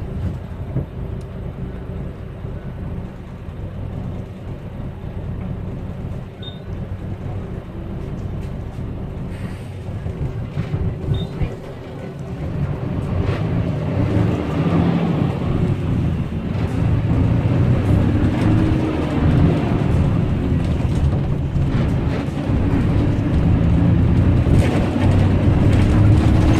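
Subway train running, heard from inside the carriage: a steady low rumble that grows louder about halfway through as the train picks up speed.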